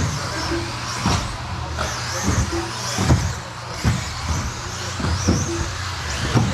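1/10-scale electric RC buggies racing on a carpet track: the high whine of their brushless motors rises and falls as they speed up and slow down, with sharp clacks and thumps about once a second from landings and hits, over a steady low hum.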